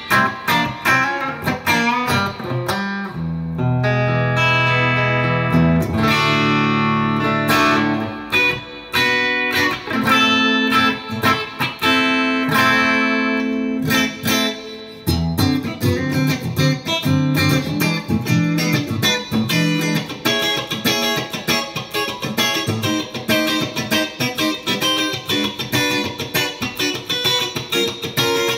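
1981 Aria Pro II CS-350 electric guitar with two humbucking pickups, played through an amplifier: held chords ring out through the first half, then a run of quick picked single notes takes over from about halfway.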